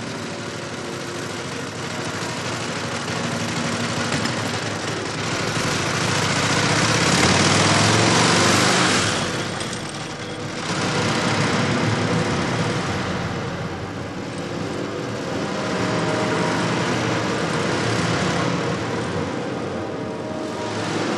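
Motorcycle engine running as the bike rides along, its sound swelling and fading several times and loudest about seven to nine seconds in.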